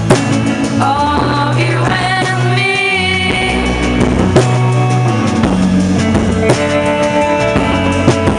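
Pop-rock song played by a band with drum kit and guitar, a melody line carried over a steady beat.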